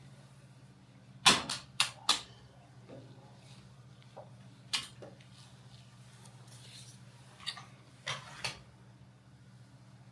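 A series of sharp clicks and knocks from objects being handled: four close together about a second in, one near the middle and three near the end, over a steady low hum.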